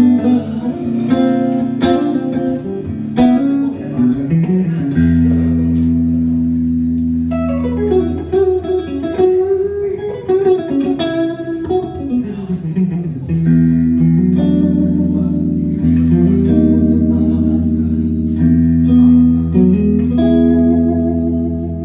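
Fender 1963 Masterbuilt guitar being played: picked notes and held chords over a sustained low note, with a slow pitch bend up and back down around the middle.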